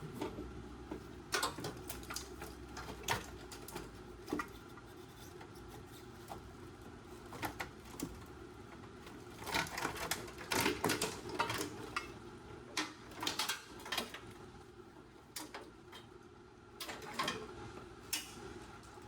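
Irregular clicks, taps and clattering from hands and tools working a car's wiring harness loose, with bunches of quick clicks in a few spots and quieter gaps between.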